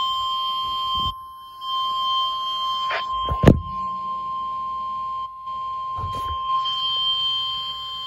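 NOAA Weather Radio warning alarm tone: a steady, single-pitch beep of about 1050 Hz, the signal that warns of an impending hazard, sent here as part of the required weekly test and heard through a Motorola two-way radio's speaker. A sharp knock cuts across the tone about three and a half seconds in.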